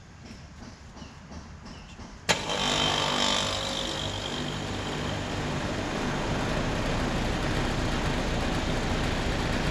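Outdoor unit of a 2000 Philco heat pump starting up in heat mode: a little over two seconds in, a sharp click, then the scroll compressor and fan come on together and run steadily, with a brief hiss at first. The compressor has a low-pitched sound.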